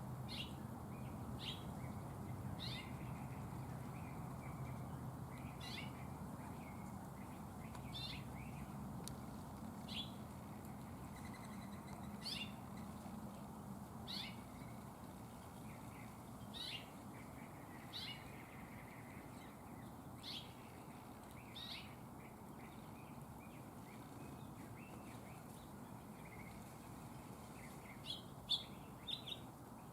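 Small birds at a feeder giving short, sharp chip calls, one every second or two, with a quick run of several chips near the end, over a faint low background rumble.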